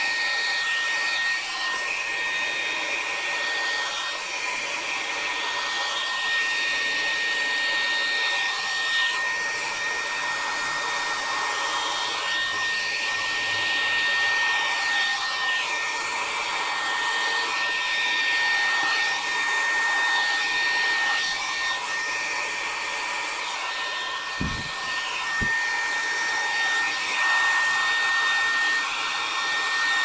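Hand-held hair dryer running steadily, blowing air to spread acrylic paint across a canvas. A constant high whine rides over the rush of air.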